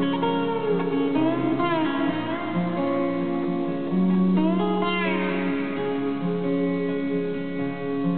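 Live band playing an instrumental passage led by acoustic guitars, with held chords under a lead line whose notes glide up and down, about a second and a half in and again around five seconds in.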